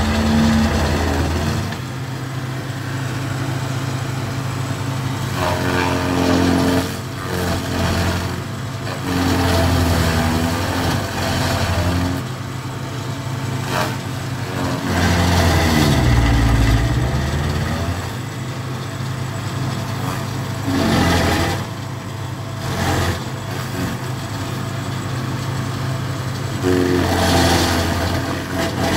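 Tracked stump grinder's engine running hard as its cutting wheel grinds into a tree stump. The engine note sags and climbs back several times as the wheel bites into the wood, most deeply about halfway through.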